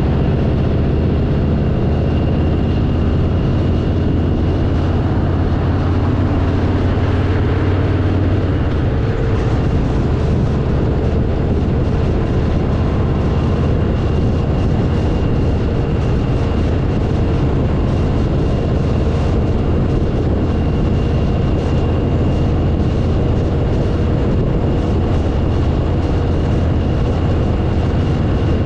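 Harley-Davidson V-twin motorcycle cruising at steady road speed: an even low engine hum under a constant rush of wind and road noise.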